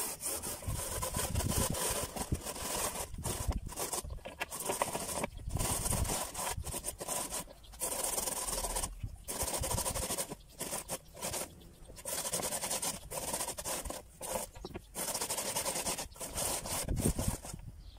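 Raw potatoes rubbed down a metal box grater into a bowl: repeated rasping strokes in quick runs, broken by brief pauses.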